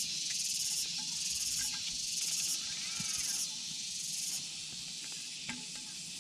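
Insects buzzing in the surrounding vegetation: a high, even hiss that swells and drops back roughly once a second. A few light clicks come through as plastic drone propellers are handled.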